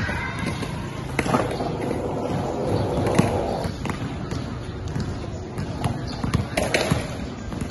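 Basketballs bouncing on a hard outdoor court during a dribbling drill, a run of irregular thuds.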